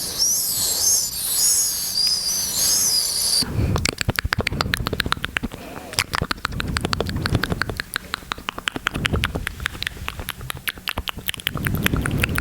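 Close-miked ASMR mouth sounds: a high, wavering squeak lasting about three seconds, then a long run of rapid wet clicks and pops from the mouth, with some breathy low noise underneath.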